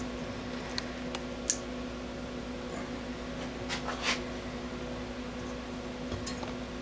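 A handful of small, sharp clicks and ticks, the loudest about a second and a half in, as needle-nose pliers work a zip tie through the holes of an aluminium belt carriage. The clicks sound over a steady background hum.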